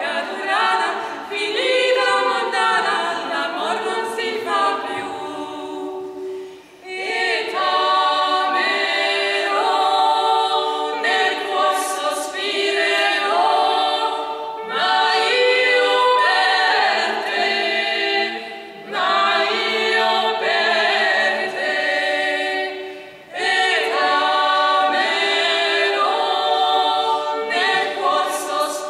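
A trio of voices singing a cappella in harmony, several sung lines at once. The long phrases are broken by short pauses, about a quarter of the way in, around two-thirds of the way and again soon after.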